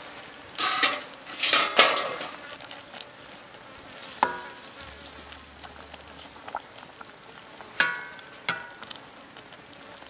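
A steel ladle stirring soup in a steel wok. Two louder scraping swells come in the first two seconds, and the ladle knocks against the wok with a short metallic ring about four seconds in and twice near the end, over a steady low hiss.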